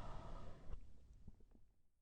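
The last of a lion's roar dying away within about half a second, followed by near silence with faint low rumble.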